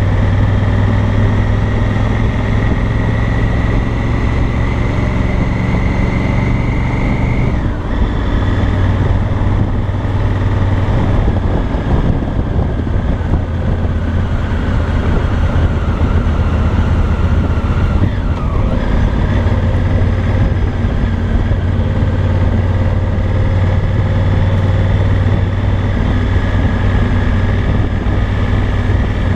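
Honda Africa Twin's parallel-twin engine and exhaust running at low riding speed. Its note climbs slowly and drops sharply about seven seconds in, then dips again around eighteen seconds.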